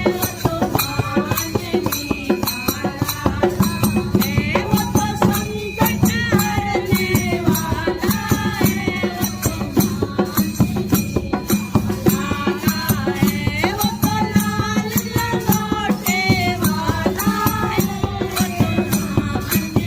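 Hindi devotional bhajan sung in kirtan style over rhythmic hand percussion that keeps a steady, fast beat.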